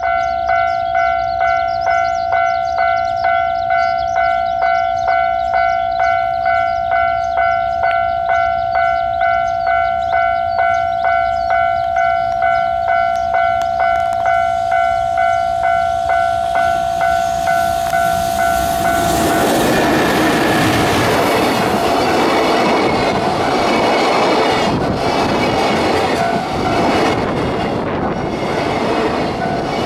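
Level-crossing warning bell ringing about twice a second as a JR Freight EF210 electric locomotive approaches. About 19 seconds in, the container wagons pass close by and the rumble and clatter of their wheels drowns the bell.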